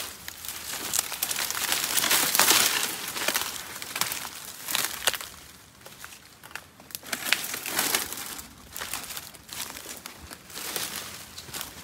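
Footsteps crunching through dry leaf litter and brushing past palm fronds. The rustling and crackling is irregular and loudest two to three seconds in.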